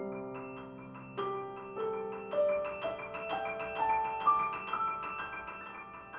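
Solo piano playing a rippling passage: a chord struck at the start, then a melody climbing note by note over quick repeated high notes, the notes ringing on into one another.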